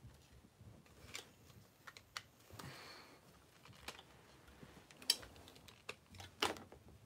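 Plastic parts of a Power Rangers Dino Fury Zord toy clicking and clacking as they are handled and fitted together, in scattered single clicks about a second apart, the loudest two near the end.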